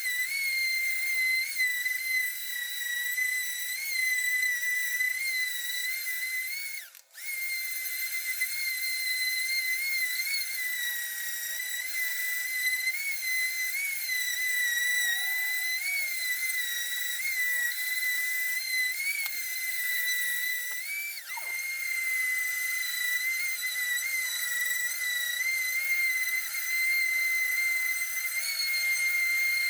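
Electric sander running with a steady high-pitched whine, stripping the old shellac and varnish finish from a timber table top; the pitch sags and recovers every second or so as it is worked across the wood. It briefly drops out about seven seconds in.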